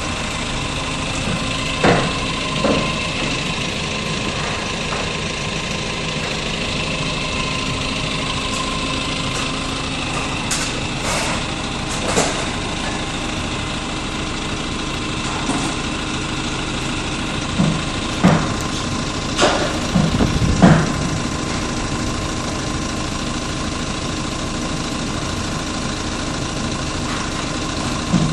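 A large forklift's engine running steadily at idle, with a scattering of short sharp knocks and clanks as it handles a car on its forks, the loudest cluster about two-thirds of the way through.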